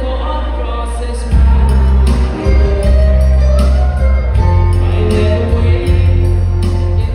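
A song played through a PA system, with a man singing live into a microphone over a backing track. A heavy bass and a regular drum beat come in about a second in.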